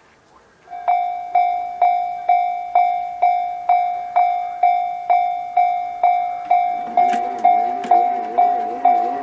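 JR-standard electronic level-crossing alarm starting up about a second in, then ringing steadily in a repeating ding at roughly two strikes a second, signalling that a train is approaching. About seven seconds in, a lower wavering sound and a few sharp clicks join it.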